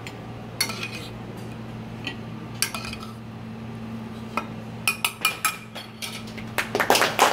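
Metal spoon clinking and scraping against a stainless saucepan and a small ceramic bowl as glazed carrots are spooned out: scattered sharp taps that come thicker near the end, over a steady low hum.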